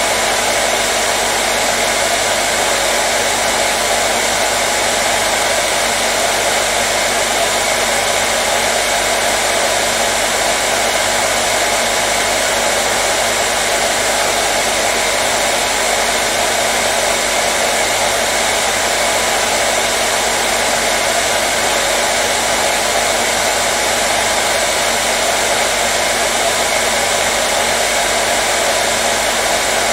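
Hair dryer running continuously: a steady, unchanging rush of blown air over a faint motor hum.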